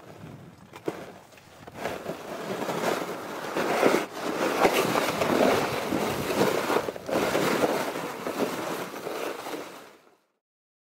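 A ski pulk sled being towed over snow: a rough, steady scraping hiss that swells about two seconds in and cuts off abruptly near the end.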